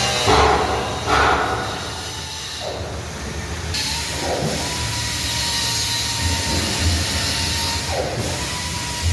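Steady mechanical noise with a hiss and a faint steady whine, with several short rushes that swell and fade.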